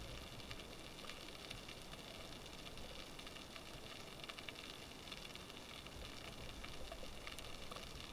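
Faint underwater ambience: a steady hiss with fine, irregular crackling clicks.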